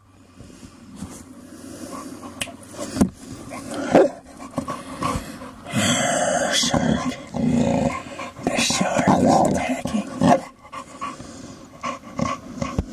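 Boxer dog growling in play while lunging at a plastic toy box, with a few sharp knocks on the plastic in between.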